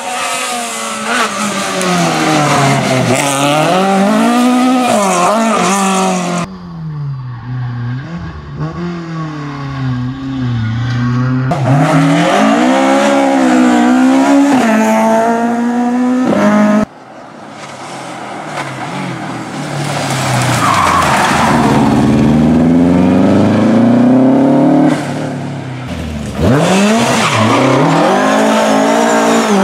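Rally car engines at full throttle, revving hard through the gears, their pitch climbing and dropping again and again as the cars accelerate and brake for bends. The sound changes abruptly several times as one car gives way to another, including Mk2 Ford Escorts.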